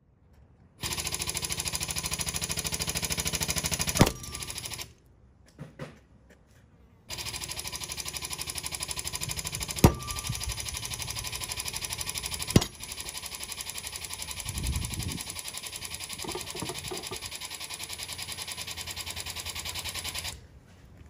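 Hydraulic pump running in two long spells, pulling a glue-in bolt out of a concrete block. Three sharp cracks, about four, ten and twelve and a half seconds in, as the bolt breaks out of the concrete in stages.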